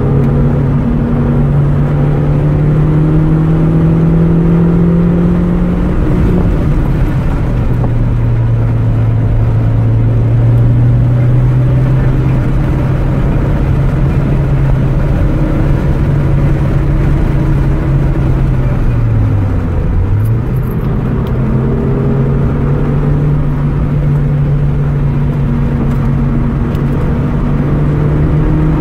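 Car engine running hard around a race track, its pitch climbing slowly and dropping sharply at a gear change about six seconds in. Near twenty seconds it dips briefly and comes back up, then holds and climbs again.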